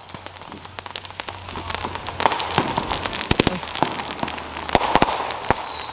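A 76-shot zipper firework cake firing in quick succession: a rapid string of sharp pops and cracks over a continuous crackle, growing denser and louder after about two seconds, with a faint high falling whistle near the end.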